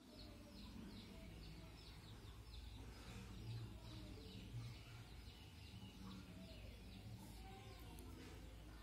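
Faint bird chirping: short chirps repeated about three times a second, over a steady low hum.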